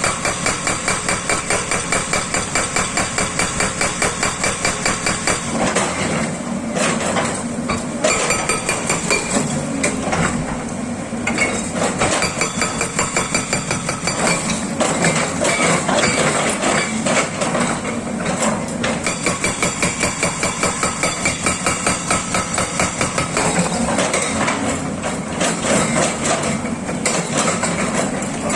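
Hydraulic rock breaker on a SANY excavator hammering rock in a fast, regular series of blows, several a second, with the excavator's diesel engine running underneath. In the middle the hammering turns rougher and less even.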